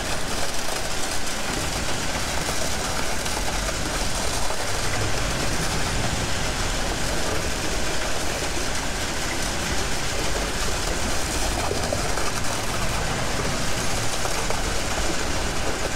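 Concrete pumper truck's engine running steadily while it pumps ready-mix concrete through the hose.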